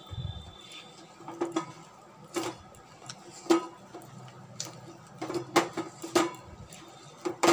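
A hand kneading a thick palm-fruit and rice-flour batter in a metal bowl: irregular clicks and taps of fingers and bowl against the metal, roughly one or two a second, with a low bump right at the start.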